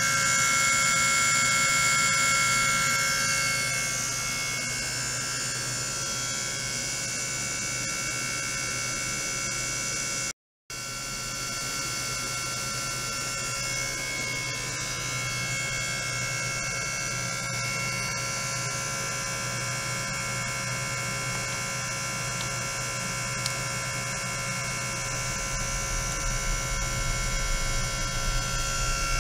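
Steady electric buzz with several high whining tones, from ultrasonic probes driven by function generators in a small water container. The sound cuts out for a moment about a third of the way in, and a low rumble with crackles comes in near the end.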